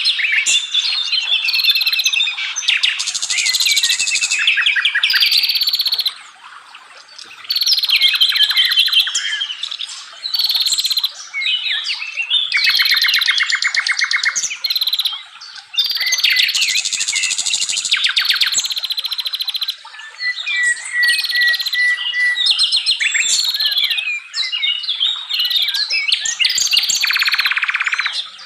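Forest songbirds singing: a dense run of varied whistles, fast chattering trills and buzzy rattling phrases, with only brief pauses.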